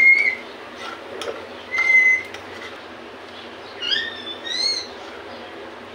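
Chopped dry fruits roasting in ghee in a frying pan while a steel spoon stirs them, over a steady low hiss. Two short, high squeaks come about two seconds apart, then a bird chirps twice near the end.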